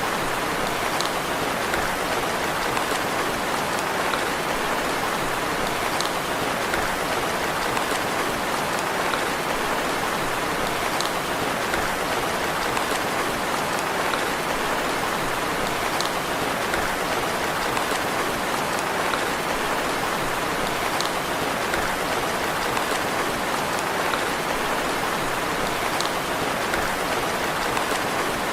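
Steady gentle rain falling, an even hiss of many drops, with a faint tick that comes back about every five seconds.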